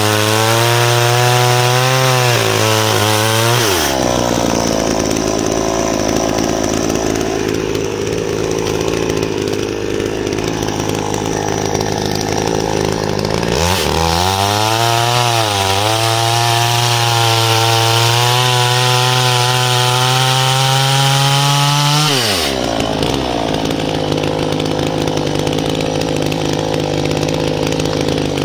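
Oleo-Mac GSH 510 two-stroke petrol chainsaw running at high revs while cutting through large logs. Its pitch falls sharply about four seconds in and again about two-thirds of the way through, each time turning rougher, and climbs back to a clean high whine in between.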